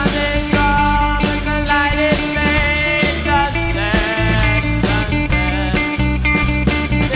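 Young rock band playing live: drum kit, electric and acoustic guitars, alto saxophone and a brass horn, with a boy singing into the microphone.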